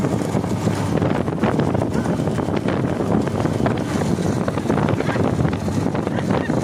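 Wind buffeting the microphone over a steady rush of moving-vehicle noise, with scattered rattling clicks.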